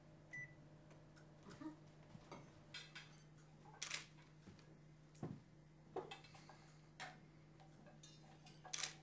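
Scattered light knocks and clinks of tableware and kitchen utensils, about one a second, over a steady low hum. A short electronic beep from the oven's control panel comes about half a second in.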